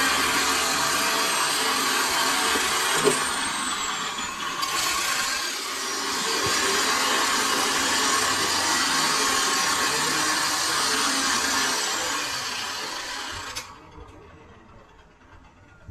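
Handheld angle grinder grinding the steel rotor shaft of a forage harvester down to bearing size: a harsh grinding rush with a high whine that sags under load about three and a half seconds in. It keeps grinding until it is switched off and runs down about three seconds before the end.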